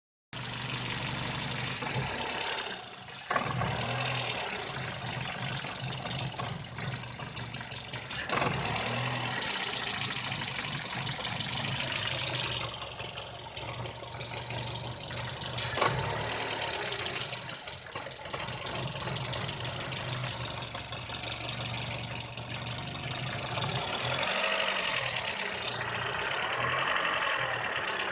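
VW Polo 6N engine idling roughly and unevenly, its running dipping every few seconds with a few sharp ticks: a rough idle whose cause the owner has not found.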